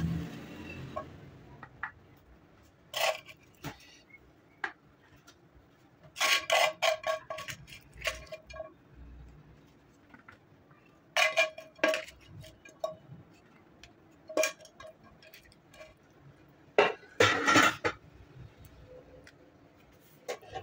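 A serving utensil clinking and scraping against a frying pan and a ceramic plate as glazed chicken pieces are dished out. The sound comes in short clusters of clinks every few seconds, some with a brief ring.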